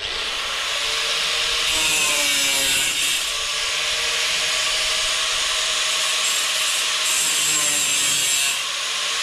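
Angle grinder cutting through sheet steel: a steady, loud grinding hiss over a motor whine that dips and recovers in pitch as the disc bites.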